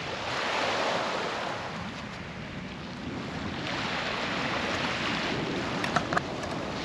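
Sea waves breaking and washing on the shore, swelling twice a few seconds apart, with wind on the microphone. A few light clicks near the end.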